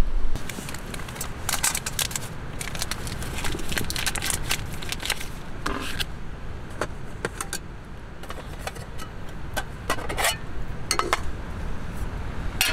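Small metal clinks, taps and scrapes of camp cookware being handled by hand, a mess tin among it, in irregular clusters with short pauses between.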